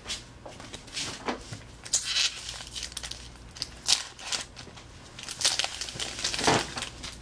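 Pokémon trading cards being slid one behind another in the hand: a string of short, irregular papery swishes and rustles.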